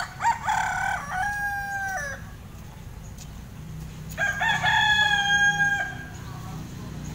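A rooster crowing twice, each crow about two seconds long and ending in a held note that drops at the end.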